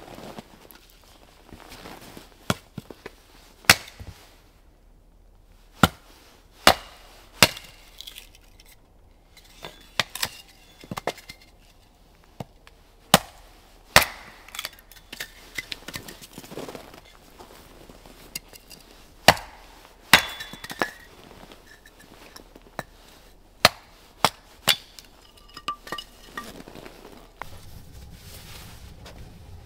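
Axe splitting firewood on a chopping block: a series of sharp chops, a second or several apart, with lighter knocks of wood between them. Near the end the chopping stops and a steady low hum takes over.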